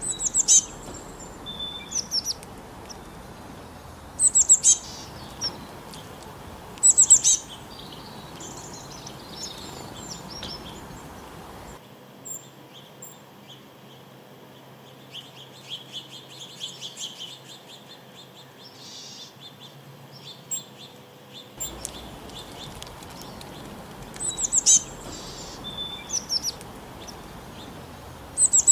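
Small birds chirping: sharp, high-pitched chirps in short bursts every couple of seconds over a steady background hiss. A quieter stretch in the middle holds softer, rapid trilling.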